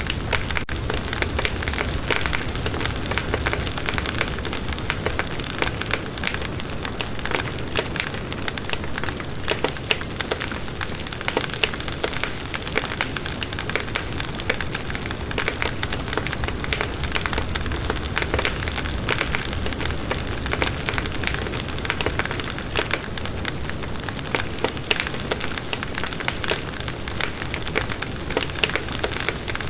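Wood bonfire burning with a dense, steady crackle of small pops and snaps over a low rumble.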